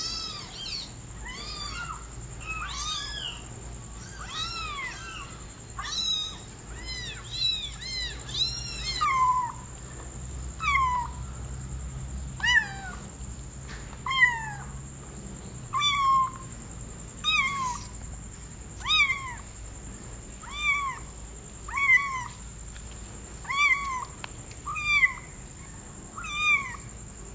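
A young kitten meowing over and over, about one call a second, each call rising and then falling in pitch. The calls grow louder and more evenly spaced in the second half.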